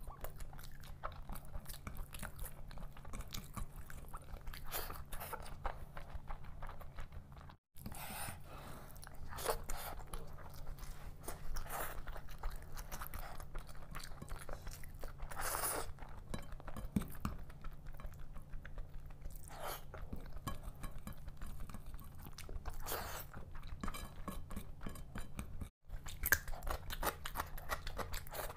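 Close-miked chewing and wet mouth sounds of a person eating rice and seafood curry by hand, with dense small clicks and a few louder crunchy bites. A steady low hum sits underneath. The sound drops out briefly twice, about 8 seconds in and near the end.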